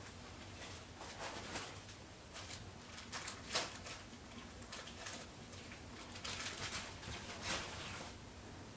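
Bedsheets rustling and soft thumps as a silver chinchilla Persian cat scampers and pounces on a bed, in irregular bursts with a sharper thud about three and a half seconds in.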